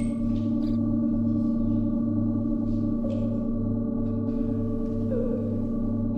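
Recreated TARDIS interior ambience: a steady electronic hum made of several constant tones, over a low throb that pulses evenly a few times a second, with faint higher blips now and then.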